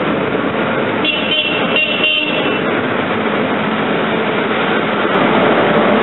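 CP Class 4700 electric locomotive passing with its train and sounding a short high-pitched horn of several tones, about a second and a half long, starting about a second in. It is a driver's greeting toot, heard over the steady noise of the passing train.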